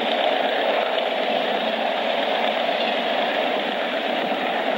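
Frisco freight train rolling past, a steady noise of wheels on the rails with no separate knocks or horn.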